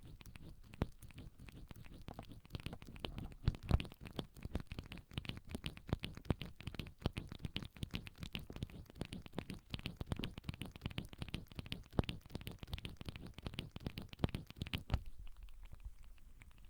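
Lobsters making a dense, irregular crackle of small clicks and scratches, the sound sold as lobsters breathing. It thickens a couple of seconds in and dies away near the end.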